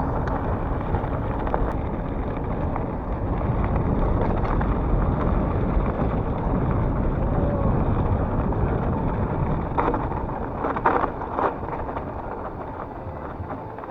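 Wind rushing over the microphone on a moving mountain bike, with the rumble of the ride underneath and a few sharp knocks about ten to eleven seconds in. The noise eases off toward the end.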